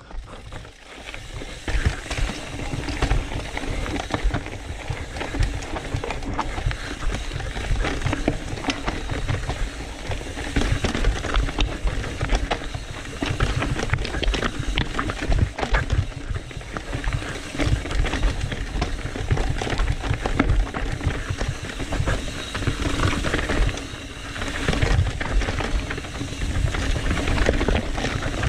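Full-suspension mountain bike (Trek Fuel EX 7) clattering and rattling over rocks at speed on a rough downhill, with many sharp knocks from the wheels and frame, and wind rumbling over the microphone.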